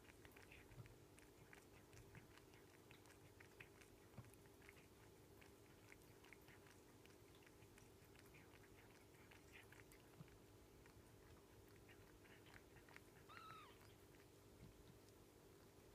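Faint, soft wet clicking of a Maine Coon mother cat licking and grooming her newborn kitten, with one short high mew from a kitten late on.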